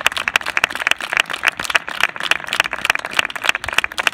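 A group of people applauding: many quick, overlapping hand claps, loud and unbroken.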